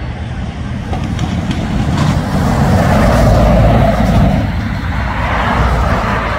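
Jet airliner engines rumbling as an aircraft moves along the runway, swelling to their loudest about halfway through and easing off slightly after.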